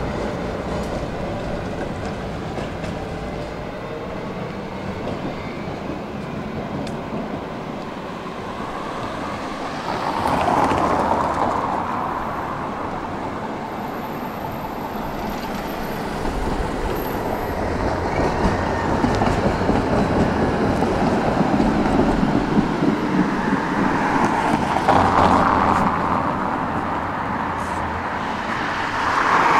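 Tram running along its tracks: a steady rumble of wheels on rail and motor, swelling louder several times.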